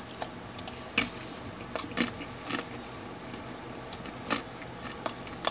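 A handful of short, soft clicks at irregular intervals from a laptop being used to navigate between web pages, over a steady high hiss.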